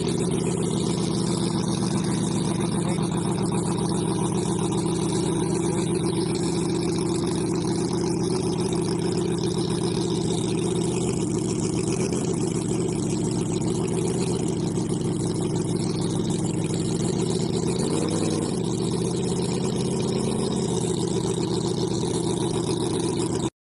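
Miniature model V-engine running steadily at an even speed, with a brief rise and fall in pitch about eighteen seconds in.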